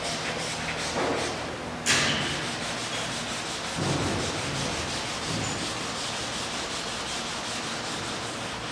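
A gloved hand rubbing steadily across the surface of a painted canvas, with a sudden sharp sound about two seconds in.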